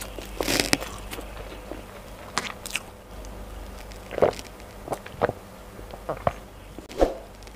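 Close-miked eating mouth sounds: chewing with a few wet clicks, then swallowing gulps of water from a glass, about one a second.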